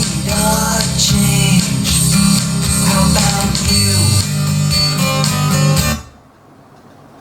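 Guitar-led song with a heavy bass line, played through a JVC CA-DXT9 hi-fi system with its subwoofer. The music drops away sharply about six seconds in.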